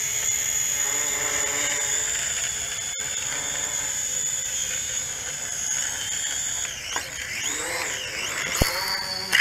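JJRC H11WH quadcopter's motors and propellers whining steadily in a low hover under altitude hold, which keeps the drone from settling to land. Near the end the pitch wavers up and down as the motors change speed, with a couple of sharp knocks. The whine then cuts off suddenly as the motors stop.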